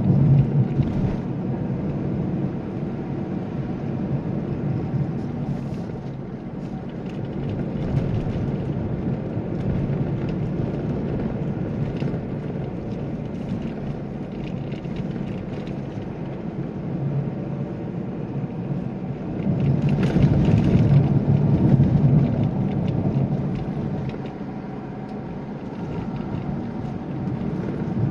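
Cabin engine and road noise of a Mazda2 on the move: a steady low rumble that swells louder for a couple of seconds about twenty seconds in.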